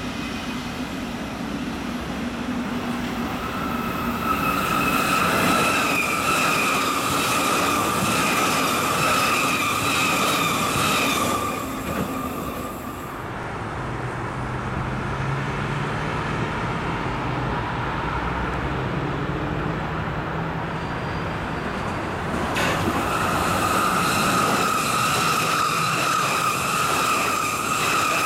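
Passenger trains running past on electrified track: first an ICE high-speed train rolling by, then a Hamburg S-Bahn class 474 electric train approaching and passing close. A steady high-pitched squeal rides over the running noise for several seconds in the first half, and again near the end as the S-Bahn passes.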